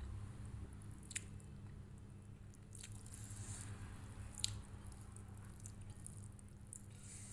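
A person eating rice with their mouth close to the microphone: wet chewing and squishing, with two sharp clicks, one about a second in and a louder one a little past the middle.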